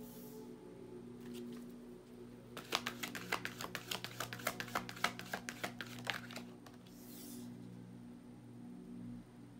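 Tarot cards being handled on a wooden table: a short slide as a card is laid down near the start, then a rapid run of card clicks for three to four seconds as the deck is worked through, and another short slide around the seventh second. A soft, steady background drone runs underneath.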